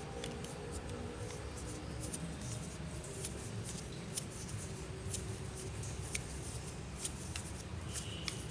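Light scattered clicks and rustling of hands handling small threaded air fittings, over a low steady background rumble.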